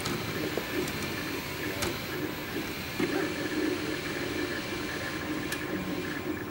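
MakerBot 3D printer printing: its stepper motors whir in tones that change pitch as the extruder head moves back and forth along its rods, over the steady hum of the fans.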